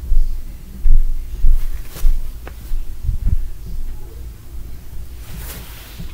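A series of dull, heavy low thuds and bumps through the first three and a half seconds, with a couple of sharp clicks in between and a brief rustle near the end.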